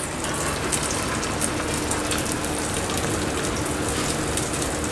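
Soybean and chana dal kebab shallow-frying in hot oil in a non-stick pan: a steady sizzle with fine crackles.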